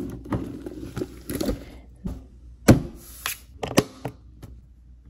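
An Away aluminum hard-shell suitcase being handled: a series of sharp clicks and knocks from its metal shell, lock and latches, the loudest a little under three seconds in, with softer rustling of the fabric lining before.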